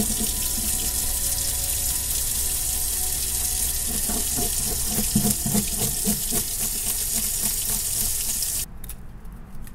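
Tap water running full into a stainless-steel sink, with a run of quick scraping strokes about halfway through as a fish scaler is worked over a yellowtail snapper under the stream. The running water cuts off suddenly near the end.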